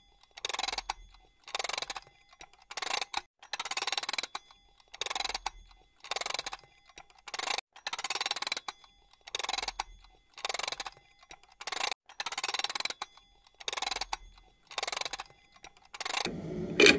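A clock ticking, one tick a little over every second, each with a brief ring. About a second before the end, a steadier, lower sound comes in.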